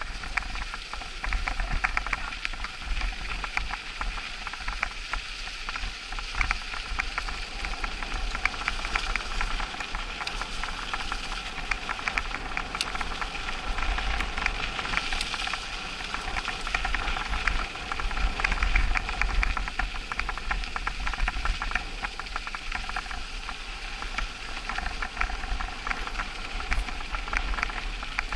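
Mountain bike riding over packed snow: a steady crunching hiss from the tyres, shot through with many small clicks and rattles from the bike, over a fluctuating low rumble of wind on the microphone.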